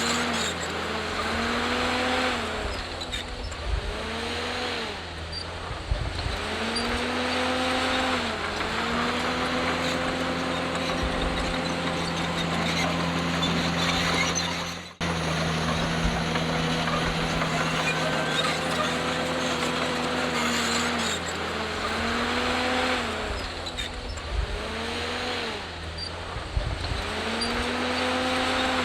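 Komatsu D51PX bulldozer's diesel engine working under load, its note dipping and climbing back several times as it pushes, over a steady clatter of machinery. The sound briefly cuts out about halfway through.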